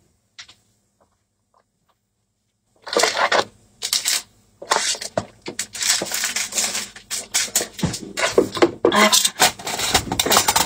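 A person gulping water from a large plastic bottle in quick, irregular swallows, starting about three seconds in after a near-silent start.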